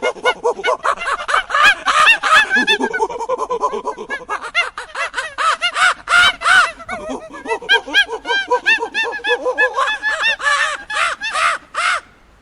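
A fast chattering series of short, pitched animal calls, several a second, thinning briefly about four seconds in and stopping shortly before the end.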